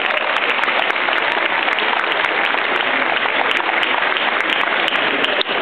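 Audience applauding steadily: dense, even clapping from a large crowd.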